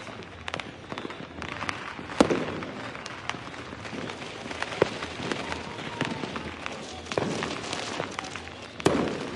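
Fireworks going off in a steady stream of crackles and pops, with several louder bangs that ring out briefly, the loudest about two seconds in and another near the end.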